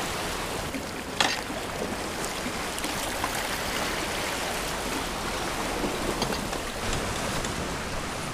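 Ocean surf washing against a rocky lava shoreline, a steady rushing wash, with one sharp click about a second in.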